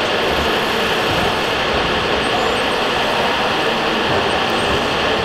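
Steady running noise of radio-controlled scale trucks and construction machines, blended into the constant din of a busy exhibition hall.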